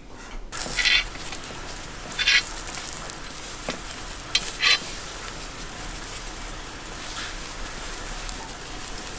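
Wild boar meat skewers sizzling over hot charcoal. A steady hiss starts about half a second in, with sharp crackles and pops every second or two, the loudest near the start and around halfway through.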